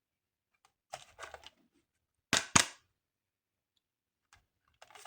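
Small plastic toy parts being handled: a few soft clicks about a second in, then two sharp plastic snaps about a quarter second apart, then more clicks near the end.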